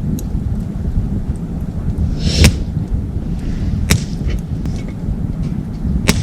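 Wood fire crackling as it burns in a folding wood stove, with scattered small ticks and three loud sharp pops about two and a half, four and six seconds in, over a steady low rumble.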